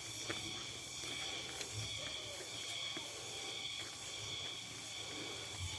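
Steady high-pitched drone of a forest insect chorus, with a low rumble and a few faint footsteps on a dirt path.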